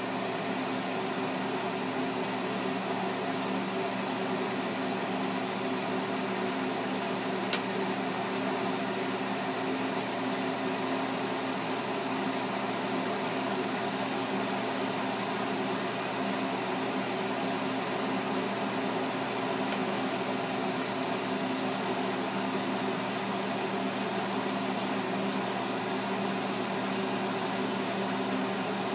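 Steady hiss of a lampworking bench torch's flame as glass is melted in it, with a low hum underneath and two faint clicks, about a third and two thirds of the way through.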